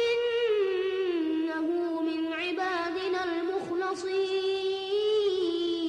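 A boy's voice chanting Qur'an recitation in melodic tajwid style, holding one long drawn-out phrase. The note steps down in pitch about half a second in and again near the end, with wavering turns in between.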